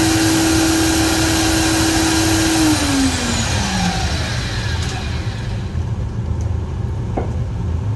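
Electric power-tool motor running at a steady high whine, then switched off about two and a half seconds in, its pitch falling as it spins down over about a second. A low hum keeps on under it, with a faint click near the end.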